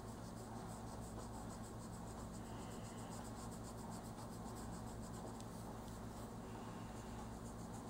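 Oil-based colored pencil scratching lightly across coloring-book paper in quick repeated strokes, laying down a light base layer, over a low steady hum.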